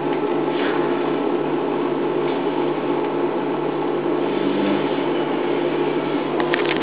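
Hoover Time Manager H130E washing machine on its final spin after draining, the drum motor running at a steady speed with a constant whine and hum. A few sharp clicks come right at the end.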